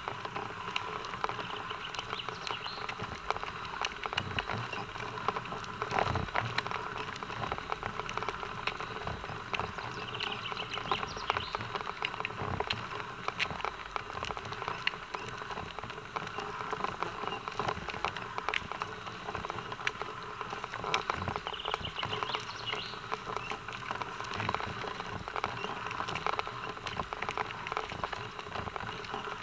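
Several horses walking on an asphalt bicycle path, their hooves clopping irregularly.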